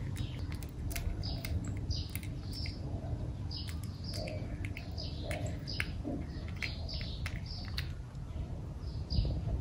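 Small birds chirping repeatedly in short high notes, over the sharp wet clicks of a cat chewing and licking soft food.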